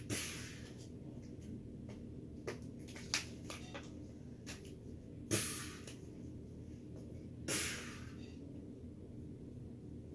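Small plastic toys being handled and set down: scattered clicks and knocks, two louder ones about five and seven and a half seconds in, over a low steady hum.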